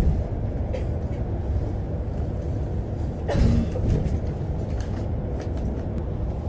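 Steady low rumble of a moving city bus heard from inside the cabin, engine and road noise together, with a brief louder rush about halfway through.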